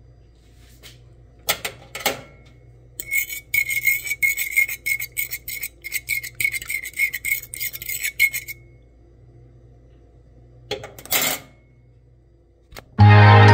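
A fork beating an egg mixture in a bowl: a few taps, then about five seconds of quick, steady scraping strokes with a light ring from the bowl, and a couple more taps near the end.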